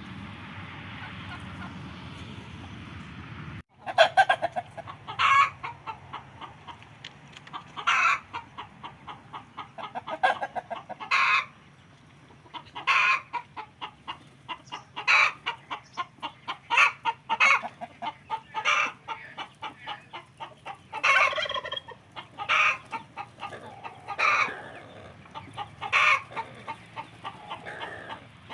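Chickens clucking, with a run of short repeated calls and a few louder squawks scattered through. A steady hiss during the first few seconds stops abruptly just before the clucking begins.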